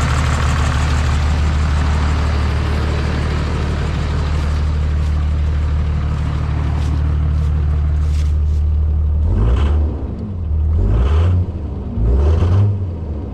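Third-generation Cummins inline-six turbodiesel idling, running rough, then revved up and down about three times from around nine seconds in.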